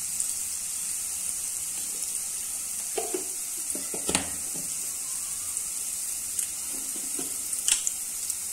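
Onion and spice masala frying in oil in a kadai, a steady sizzle. A few light clicks and knocks stand out about three, four and nearly eight seconds in.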